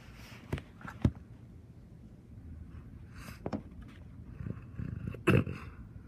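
Faint steady rain noise, broken by a few sharp knocks: two close together about half a second and a second in, one more past the middle, and the loudest near the end.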